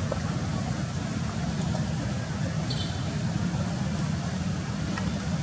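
Steady low rumble of outdoor background noise, with a brief high chirp about two and a half seconds in.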